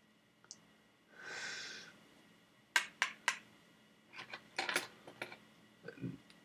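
A breathy exhale, then a string of sharp clicks and light knocks from small hard objects being handled, ending in a soft low thud.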